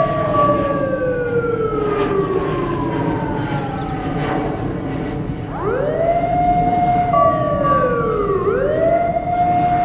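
Emergency alert siren wailing. The tone sweeps up, holds, then falls slowly over about five seconds, and from about halfway it repeats in quicker rise-and-fall cycles about every three seconds. A steady higher beep joins briefly, over a constant rushing noise.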